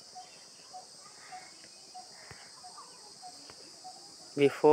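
Faint steady high hiss with soft short chirps repeating a little under twice a second, like insects in the background. A man's voice starts near the end.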